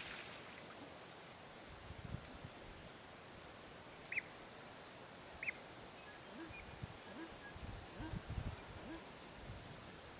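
Brown teal calling faintly: two short high whistles near the middle, then a run of soft, low, quacking calls, over a thin high steady tone that comes and goes in the background.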